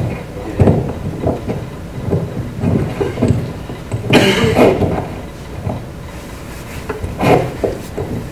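Clip-on lapel microphone being handled and clipped onto clothing: irregular rustling, bumps and knocks, the loudest a scrape about four seconds in.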